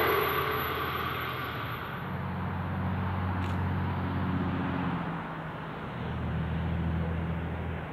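Distant diesel freight locomotives (NR, DL and NR class) working toward the listener around a curve, heard as a low, steady engine drone that eases about five seconds in and comes back. At the start, the noise of the previous passing train dies away.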